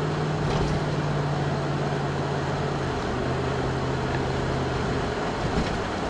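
Car in motion heard from inside the cabin: steady road and engine noise with a low hum that drops slightly in pitch about halfway through and fades out about five seconds in.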